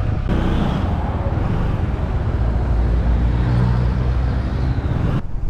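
Motor scooter engine running with wind and road noise on a helmet-mounted camera mic while riding. The sound changes abruptly twice, about a third of a second in and near the end.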